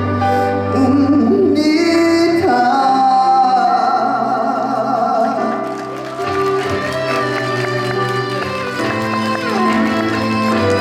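Trot song over a recorded backing track: a male singer holds a long note with vibrato. About six seconds in, the instrumental backing carries on alone as an interlude.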